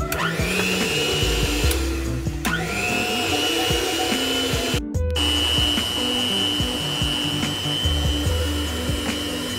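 Cuisinart 220-watt electric hand mixer whirring as its beaters mix flour into cookie dough: its whine rises as it starts, stops and rises again about two and a half seconds in, then holds a steady pitch after a brief gap near the middle.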